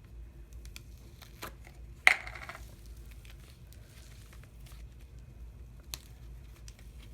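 Soft handling sounds as dyed modelling clay is unwrapped and a piece pulled off: light crinkling and scattered small clicks, with one louder crinkle about two seconds in.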